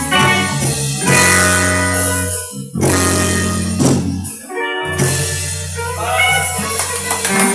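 A live band playing, with guitar leading over held bass notes. The bass drops out for a moment a little past the middle.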